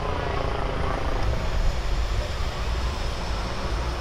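MD 902 Explorer air ambulance helicopter on the ground with its turbines running and main rotor turning: a steady low rotor rumble under a faint high turbine whine that slowly rises as the rotor winds up.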